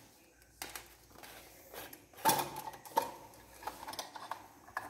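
Plastic hand torch being unscrewed and its batteries handled: scattered plastic clicks and knocks, the sharpest about half a second in and two to three seconds in.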